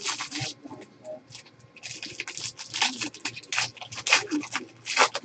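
Foil wrapper of a 2013-14 Panini Select basketball card pack crinkling as it is torn open, with the cards rustling as they are handled; irregular crackles, busiest in the second half.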